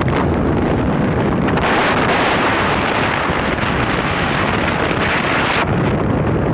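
Loud wind rushing over the microphone, with road noise, while filming from a car moving at highway speed. The rush grows brighter and stronger about one and a half seconds in and drops back about a second before the end.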